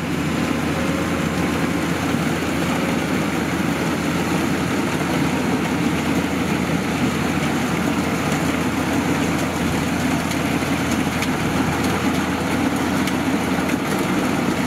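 Kubota rice combine harvester's diesel engine running steadily under load as the machine works through deep, soft mud.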